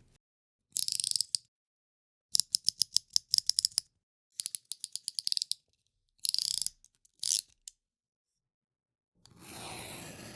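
Snap-off-blade utility knife (cutter knife) with its blade slider pushed through its click-stops, making rapid runs of ratcheting clicks, with short scrapes between them. A longer scraping stroke starts near the end.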